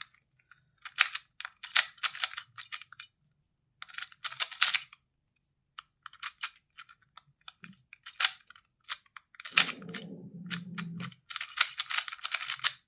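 Magnetic QiYi M Pro 2x2 speedcube being turned fast during a solve: rapid clicking layer turns in bursts, with short pauses between them. A low, dull sound runs under the clicks for about a second and a half, about ten seconds in.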